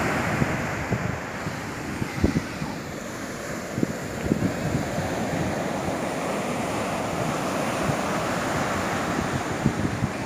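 Surf breaking and washing up a sandy beach in a steady rush, with wind buffeting the microphone in short low thumps.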